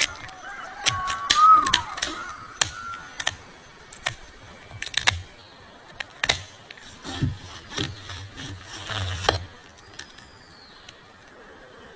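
Irregular sharp clicks and knocks, a dozen or so, stopping about nine seconds in.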